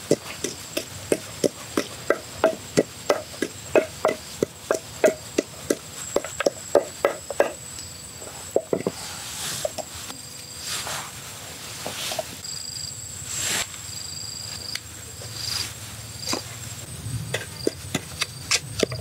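Knife chopping on a cutting board in quick, regular strokes, about three a second. The chopping thins out to a few soft swishes in the middle and picks up again near the end, over a steady high insect trill.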